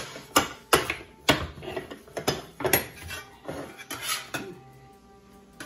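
Metal tortilla press clanking as its plates and lever are worked to flatten a fried plantain slice into a patacón: a run of sharp metal knocks over the first three seconds or so, then a softer scrape as a spatula slides under the flattened piece.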